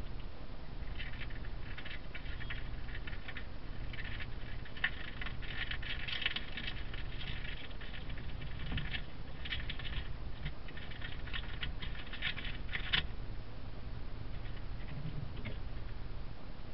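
A vole gnawing and rustling at a scrap of paper: rapid dry crackling in quick runs that stop about thirteen seconds in, with a few last crackles after. A steady low hum lies underneath.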